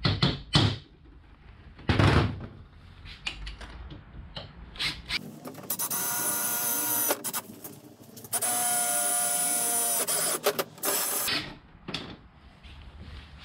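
Hammer striking a punch on an aluminium bar three times, then a Makita cordless drill whining steadily as it bores through the aluminium, in two runs of about two seconds and a short third one.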